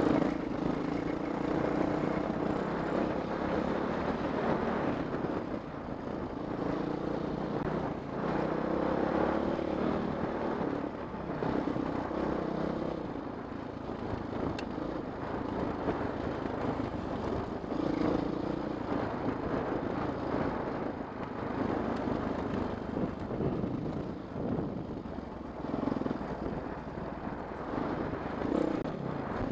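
Honda CRF450X dirt bike's single-cylinder four-stroke engine running under way on a rough dirt trail, its pitch rising and falling as the throttle is worked.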